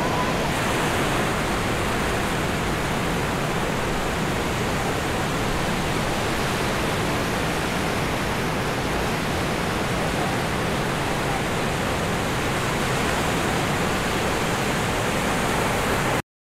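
Waves breaking and washing up a sandy beach: a steady rush of surf that cuts off abruptly near the end.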